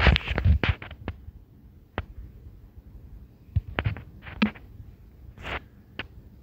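Scattered short clicks and rustling knocks, not speech: a quick cluster at the start, then single ones and a small group spread out, over a faint low rumble.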